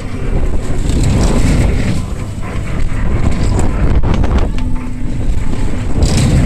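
Loud wind buffeting a handheld microphone on a moving fairground ride, with a low rumble underneath.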